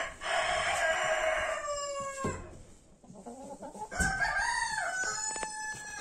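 A rooster crows twice: a first crow of about two seconds at the start that drops in pitch at its end, and a second, wavering crow starting about four seconds in.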